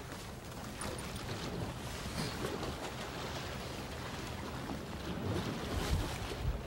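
Sea waves washing against the base of a shore rock, with wind buffeting the microphone; the low rumble of the wash swells louder a little before the end.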